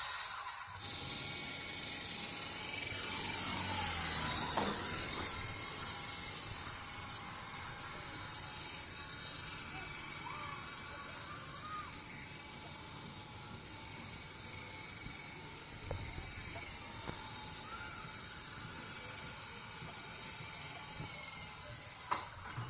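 Small battery-powered toy remote-control helicopter in flight, its electric rotor motors giving a steady high whine that shifts in pitch briefly about four seconds in.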